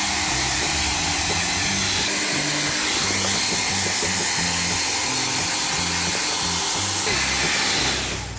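Handheld hair dryer blowing steadily on a wet silkie chicken's feathers, switched off abruptly near the end, with background music underneath.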